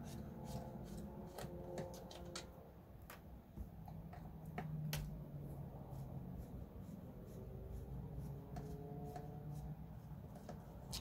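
Hex driver turning out small screws in the plastic servo mount of a Traxxas TRX-4 RC crawler: scattered small clicks and scrapes of tool and parts being handled, over a low steady hum.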